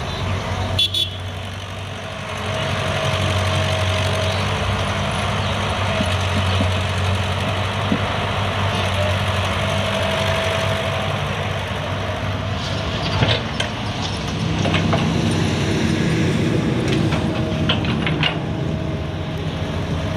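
Diesel engine of a Caterpillar tracked excavator running steadily under load as it digs and swings, with a brief higher whine twice. A few sharp clunks come about 13 seconds in and again near the end, as the bucket works and soil drops into the tractor trailer.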